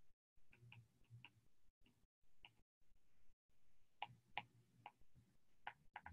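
Faint, irregular clicks of a stylus tip tapping on a tablet's glass screen during handwriting, with a small cluster of taps about four seconds in and again near the end.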